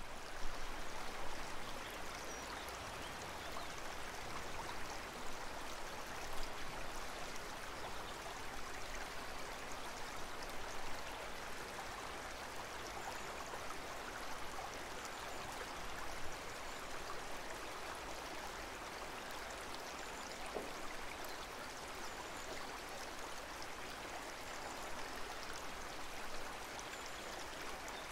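Steady trickling of water circulating in a freshwater aquarium tank.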